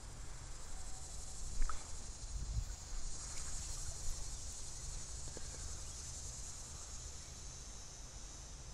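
Steady, high-pitched buzzing of insects, louder through the middle, over a low rumble, with a brief knock about a second and a half in.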